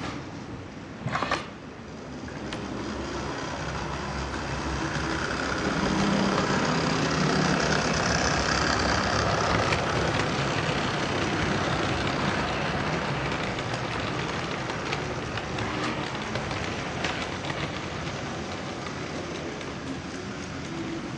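N scale model train running along the layout's track, a rolling rumble that grows louder, peaks and then slowly fades as it passes. A short click about a second in.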